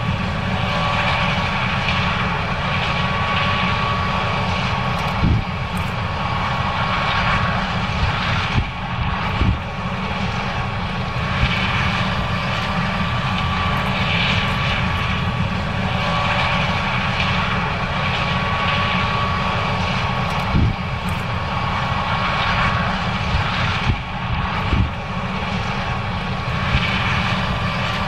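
John Deere 9610 combine harvesting corn: its diesel engine and threshing machinery running steadily, with a thin steady whine and a few short knocks.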